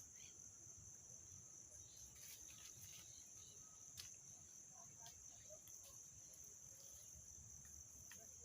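Faint, steady high-pitched insect trilling, like crickets, with a few small clicks.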